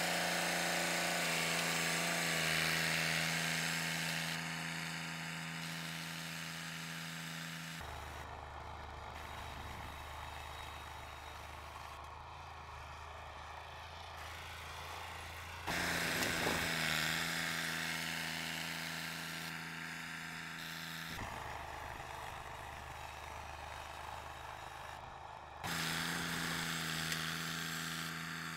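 Ford utility tractor's engine running steadily while it pulls a row cultivator through tilled soil. The engine note jumps abruptly in level and pitch a few times, louder and higher at some moments, deeper and quieter at others.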